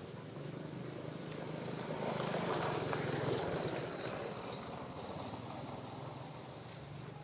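Engine hum of a passing motor vehicle, growing louder about two seconds in and fading again by about four and a half seconds.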